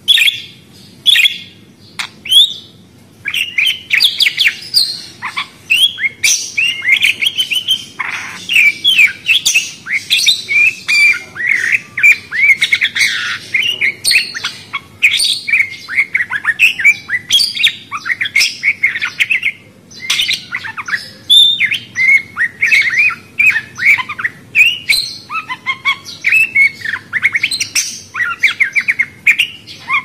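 Small pet parrots chirping and chattering. A few separate chirps come in the first seconds, then a nearly continuous run of overlapping high warbling calls and squawks.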